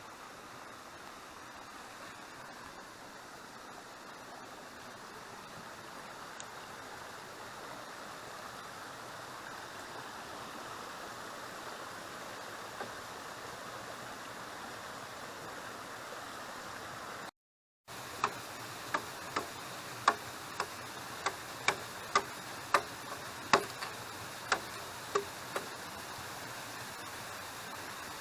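Steady rushing of a waterfall and stream. After a cut about two-thirds of the way in, a run of about a dozen sharp knocks, roughly two a second and stopping a couple of seconds before the end: tool strikes on bamboo while building a shelter.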